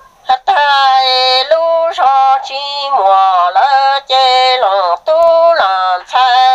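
A solo voice singing kwv txhiaj, Hmong sung poetry, in a sad lament. The voice starts about a third of a second in and holds long, high phrases whose pitch wavers and bends, with brief breaths between them.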